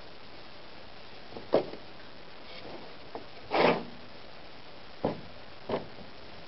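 A wooden block is set down and shifted on a pickup tailgate's ribbed plastic bed liner: five short knocks, the loudest a brief scrape a little past halfway, over a steady hiss.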